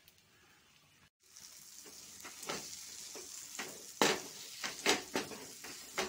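Steel spoon stirring and scraping vegetables around a metal pan over a steady sizzle, with coconut oil just added to the cooking aviyal. After a nearly quiet first second come a series of short scrapes, the loudest about four seconds in.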